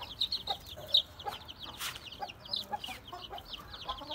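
Aseel chicks peeping: a rapid run of short, high, falling notes. A couple of sharp knocks from hands against the wooden coop come through them.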